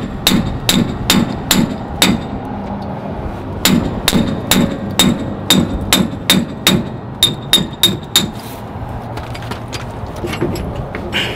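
Metal-on-metal hammering under a truck while its drive shaft is worked loose: sharp strikes about two a second, each with a short ring. The blows come in two runs with a pause around two to three and a half seconds in, then grow fewer and fainter near the end.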